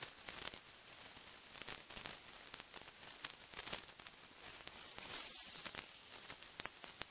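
Faint hiss with scattered sharp clicks and rustles from a lightweight dome tent being pitched: nylon fabric handled and shaken out, tent poles fitted.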